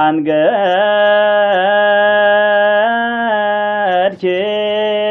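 A solo male voice chanting Ge'ez liturgical zema, the Ethiopian-rite church chant. He holds long notes with small melismatic turns and takes a quick breath about four seconds in.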